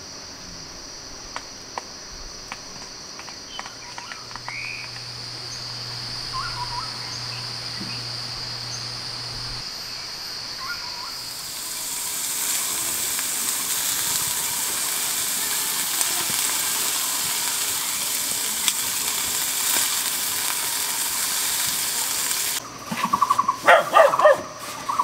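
Insects drone in a steady high tone with a few faint chirps, then a loud steady hiss takes over for about ten seconds and cuts off suddenly. Near the end a dachshund barks several times in quick succession.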